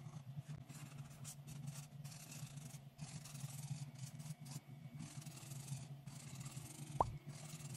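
Paint marker tips scratching and rubbing across paper in short, uneven strokes, over a steady low hum. A single short knock comes near the end.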